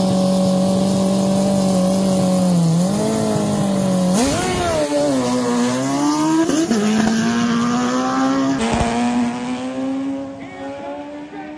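Two drag-racing motorcycles, one of them a turbocharged Kawasaki ZX10R, held at a steady high rev on the start line, then launching about four seconds in. The engine pitch dips and climbs through the gear changes and fades as the bikes run away down the track.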